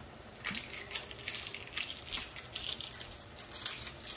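Clam adobo sauce of soy sauce, vinegar and oyster sauce bubbling and sizzling in a stainless steel pan over a gas flame, an irregular crackle that starts about half a second in.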